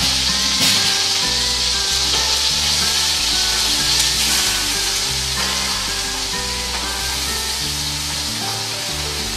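Tied beef tenderloin searing in hot oil in a pot, sizzling steadily while chopped onion is tipped into the oil. Soft background music with held low notes plays underneath.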